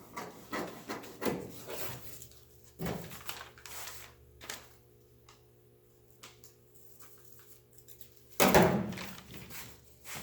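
A paper pattern rubbed and rustled against the car's sheet-metal body panel, a few short scrapes, then a pause, then one loud sudden rustle or clatter about eight and a half seconds in.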